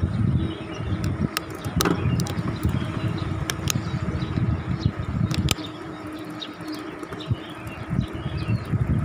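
Wind buffeting the microphone of a bicycle moving along a road: a gusting rumble, with scattered sharp clicks and rattles. It eases for about two seconds just past the middle.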